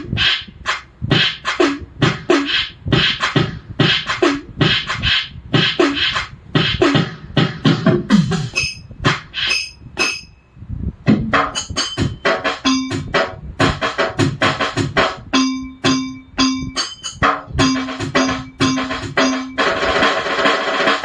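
Roland SPD-20 Pro electronic percussion pad being played: quick runs of sampled drum and percussion hits, some with short pitched tones that drop in pitch. There is a brief pause about ten seconds in, and a sustained pitched sound comes in under the hits near the end.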